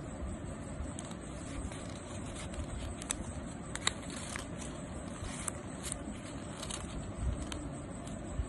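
Sheet of paper crackling and rustling as it is folded and creased by hand, a few sharper crackles standing out, over a steady low background rumble.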